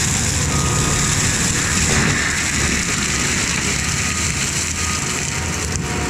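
ASV RT-135 compact track loader's diesel engine running hard under load while its forestry mulcher drum grinds through brush and small trees. The result is a steady, loud mechanical din.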